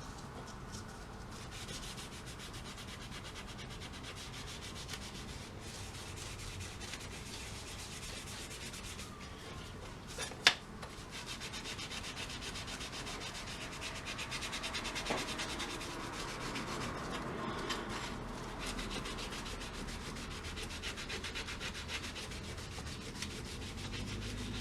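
Steady hand rubbing on a fogged plexiglass cover, polishing it with plastic polish to clear the fogging. A single sharp click sounds about ten seconds in.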